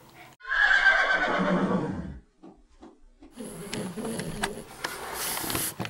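A horse whinnies once, loud, its pitch sliding down over about a second and a half. After a short gap, a busier stretch of clicks and hiss takes over.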